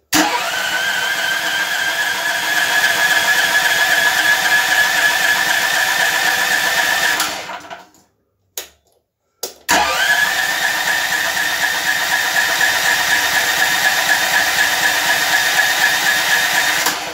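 Electric starter cranking the Grip generator's 13 hp engine on choke, in two long cranks of about seven seconds each. Each begins with a brief rise in pitch, runs steadily and then cuts off suddenly, with a short click in the pause between them. This is a cold start after the engine has sat for a year with fuel left in the carburettor.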